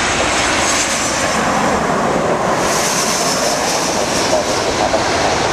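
Jet airliner engines running loud and steady as an aircraft passes close by, with a high whine that swells about two and a half seconds in.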